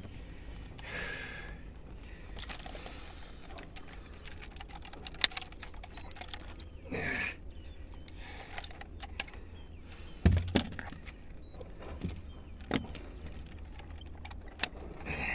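Scattered clicks and light rattles of a fish lip-grip and hanging digital scale being handled while a bass is weighed, with a short rustle about seven seconds in and a louder knock about ten seconds in.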